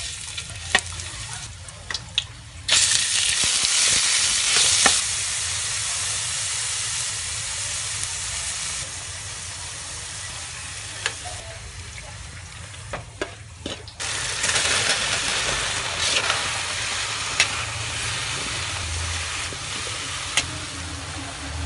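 Garlic, minced pork and then sliced luffa stir-fried in oil in an aluminium wok: a loud frying sizzle that starts suddenly about three seconds in, eases off, and flares up again about fourteen seconds in. Sharp clinks of a metal spatula scraping and tapping the wok come and go throughout.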